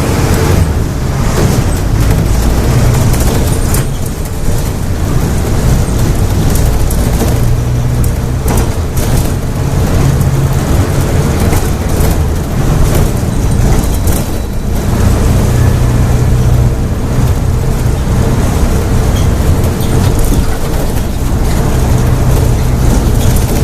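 Volksbus 17-230 OD Euro V bus diesel engine running hard at high revs under heavy throttle, a loud steady drone. The note dips briefly about four seconds in and again around fourteen seconds in.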